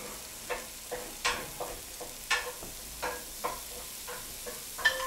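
Metal spatula striking and scraping a wok in uneven strokes, about two or three a second, each with a short metallic ring, over a faint sizzle of food stir-frying.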